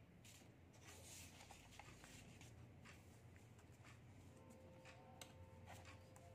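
Near silence: room tone with faint paper rustles and light ticks as a sheet on a clipboard is handled.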